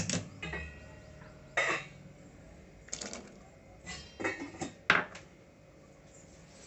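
Kitchenware clinking and clattering against an aluminium pressure cooker as chopped raw mango pieces are tipped into cooked dal: about five separate sharp knocks, the loudest about five seconds in.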